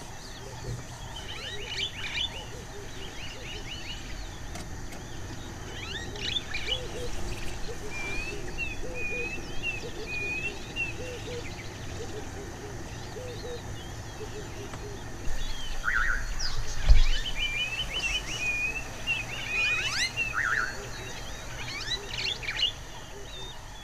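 Wild birds chirping and singing: scattered clusters of short high chirps and trills, and a run of about six short repeated notes about eight to eleven seconds in, over a low steady rumble. A dull thump about seventeen seconds in is the loudest sound.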